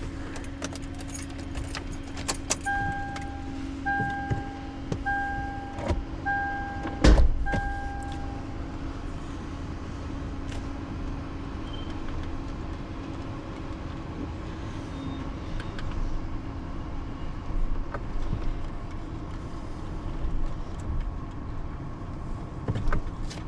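A vehicle's warning chime beeping five times, about once every second and a quarter, over a steady low hum, with one heavy thump partway through and scattered small clicks and rattles.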